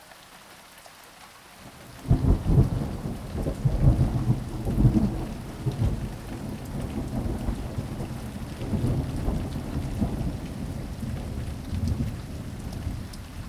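Rain falling with a low rolling rumble of thunder that starts suddenly about two seconds in, after a faint hiss, and swells unevenly.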